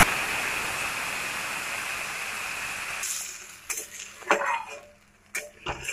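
Water just poured into a hot kadai of oil sizzling and hissing, fading away over about three seconds. Then a spatula knocks and scrapes against the pan a few times.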